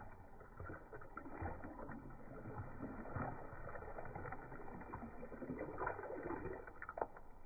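Coconut milk poured in a steady stream into a clay pot of simmering sambar, splashing and gurgling into the liquid. A single sharp tap near the end.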